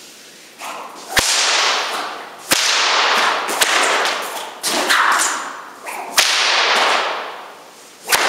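A 10-foot synthetic Dacron whip cracked again and again: sharp cracks about every second or so, each followed by a long echo in a large hall.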